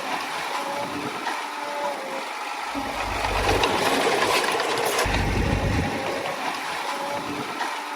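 Komatsu D20A crawler bulldozer working: diesel engine running under load with rapid mechanical clatter, and a low rumble that swells and drops away several times.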